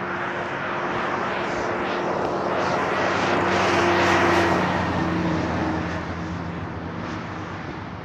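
A passing engine swells to its loudest about four seconds in and then fades away. Its steady hum drops slightly in pitch as it goes by.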